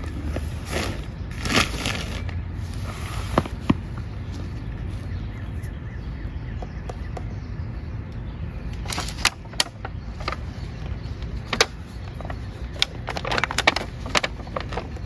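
Hands working nursery plant pots and potting soil: a brief rustle, then scattered sharp clicks and crackles that bunch together in the second half, over a steady low rumble.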